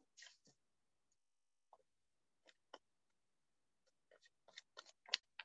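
Faint, scattered short clicks and taps against near silence: a few at first, then coming quicker over the last second and a half, the loudest about five seconds in.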